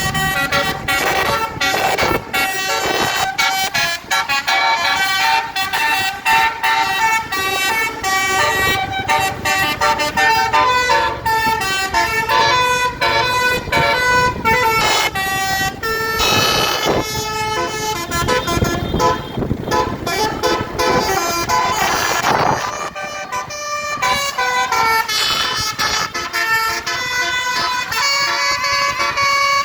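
Basuri 'telolet' bus horn, a multi-trumpet musical air horn, playing a very loud melody of short held notes that change pitch several times a second.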